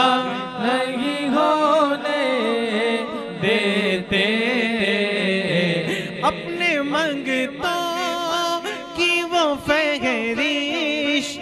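A man singing an Urdu naat unaccompanied into a microphone: long, drawn-out, ornamented notes that waver and glide in pitch.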